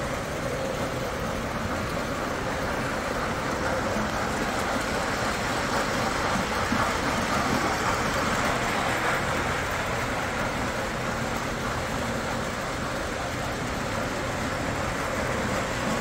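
Steady background din of a busy indoor show hall, with no single sound standing out. It swells slightly around the middle.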